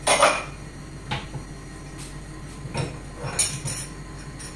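Kitchen clatter: a few separate light knocks and clinks of cookware and utensils being handled, the loudest right at the start, over a faint steady low hum.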